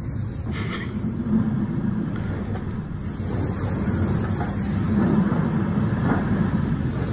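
Rough, steady rumbling from a phone recording of an earthquake, as water in large storage tanks sloshes and spills over their rims; it grows louder about halfway through.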